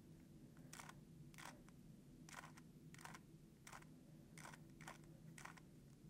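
Faint short clicks of a plastic 3x3 Rubik's cube's layers being turned by hand, about eight turns with some in quick pairs, as one run of the R U R' U R U2 R' U edge-orienting algorithm is done.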